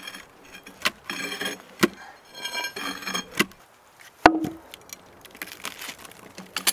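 Wooden knocks and scraping as a heavy log is levered over and a wooden plank is set down against it. The loudest is a sharp knock with a short ring a little after four seconds in.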